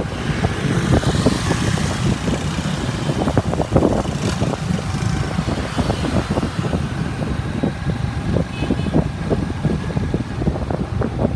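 Motorbike engines and city street traffic heard from a moving motorbike, a steady rumble with irregular gusts of wind buffeting the microphone.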